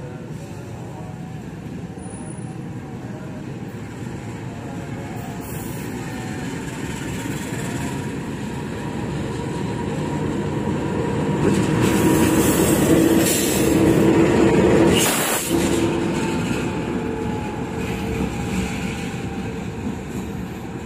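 CC206 diesel-electric locomotive running light, its engine and wheels growing louder as it comes up and passes close by, with a steady whine over the rumble. About fifteen seconds in the sound breaks off sharply, then the locomotive carries on a little quieter.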